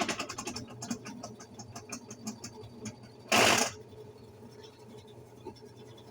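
Consul 10 kg washing machine in its spin cycle, clattering at about ten clacks a second. The clatter dies down within the first second to faint, irregular ticking, with one short loud rush about three and a half seconds in. The clatter comes from underneath the machine, where the drive pulley is loose and worn.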